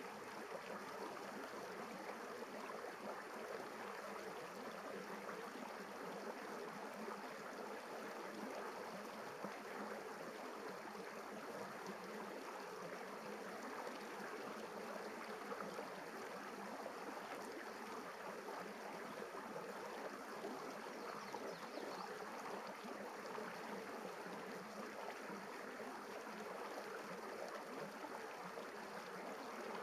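Shallow river rapids running over rock ledges: a steady rush of water.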